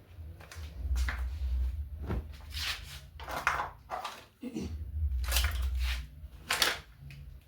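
Rustling and handling noise as bought items are moved about, with several louder rustles in the middle and toward the end over a low handling rumble.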